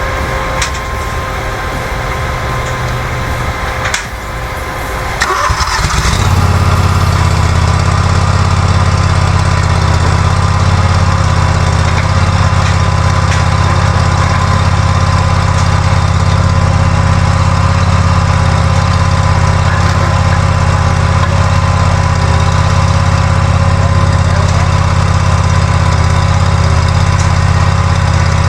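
Gasoline engine of a rental stump grinder: a lighter running sound with a steady whine at first, then about five seconds in it comes up to a loud, steady low drone that runs on without a break.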